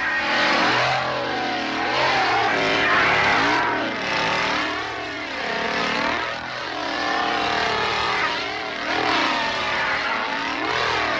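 Two-stroke chainsaw engine revving up and down repeatedly, its pitch rising and falling every couple of seconds.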